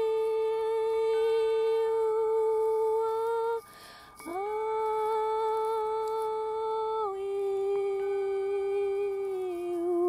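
A person's voice humming long, steady held notes, light-language toning. The voice breaks off briefly with a soft breath about three and a half seconds in, then scoops up back into the note. The pitch steps down slightly around seven seconds and again near the end, over a fainter steady high tone that carries on through the break.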